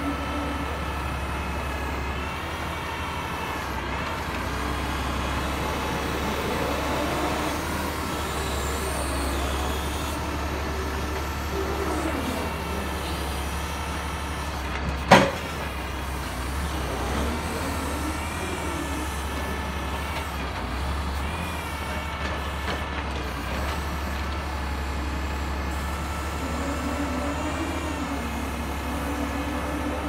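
Diesel engine running steadily under the hydraulics of a Prentice knuckleboom log loader, with a whine that rises and falls as the boom swings and grapples oak logs. One sharp knock about halfway through.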